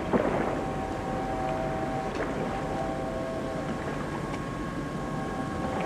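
Harbour background at a ferry landing: a steady low rumble of ships and water with a thump just after the start, and a held, multi-tone sound from about half a second to nearly four seconds in.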